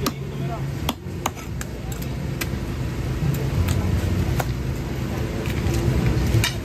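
Busy market stall background: people talking, a steady low hum, and a few scattered sharp knocks.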